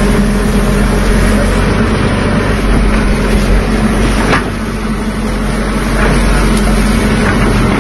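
Diesel engine of a Caterpillar tracked excavator running steadily as it digs, with a brief dip in level about four and a half seconds in.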